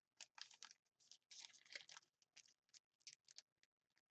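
Faint crinkling and rustling of trading-card pack wrappers being handled and pulled at, in irregular quick crackles; the packs are tough to tear open, 'like rubber'.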